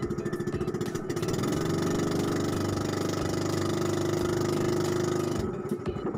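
Small outrigger fishing boat's engine running: it pulses at low revs, picks up to a steadier, louder run about a second in, then drops back to low revs near the end.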